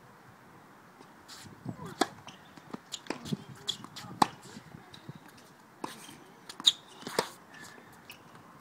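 Tennis rally on a hard court: sharp racket strikes and ball bounces, with footsteps and shoe scuffs between them. The loudest strikes come about two seconds in, just past four seconds, and twice near seven seconds.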